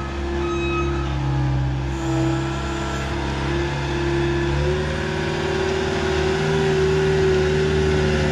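Skid loader engine running steadily under work, its pitch stepping up about two-thirds of the way through. A backup alarm beeps a few times in the first second or so.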